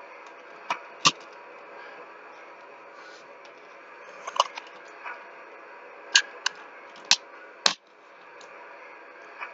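Sharp clicks and knocks of plastic toy train passenger cars being handled and set on their track, about eight in irregular succession over a steady low hiss.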